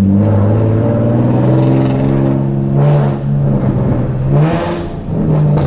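The 3.7-litre V6 of a 2011 Nissan 370Z Nismo, straight-piped from the headers back with no mufflers or resonators, running loud under throttle, its exhaust note shifting slightly in pitch, with a short rush of noise about four and a half seconds in.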